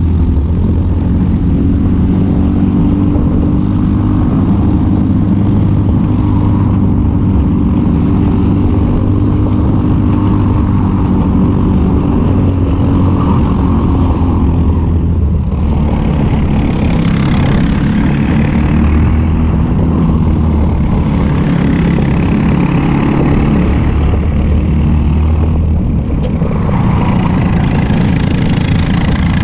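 Onboard sound of a racing kart's engine running hard at race speed, with wind and road hiss. The engine note changes briefly about halfway and again near the end, then picks back up.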